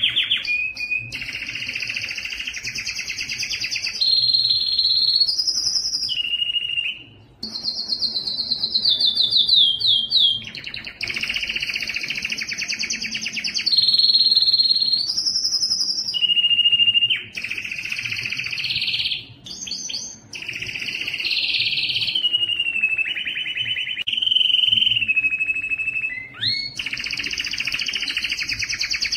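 Domestic canary singing a long, near-continuous song of rapid rolled trills alternating with held whistled notes, some gliding up or down, with a brief break about seven seconds in.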